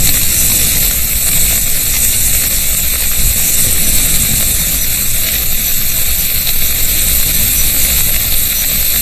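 Steady rushing hiss of a dense stream of bats flying out of a cave: countless wingbeats blurring into one even whoosh, with no single call standing out.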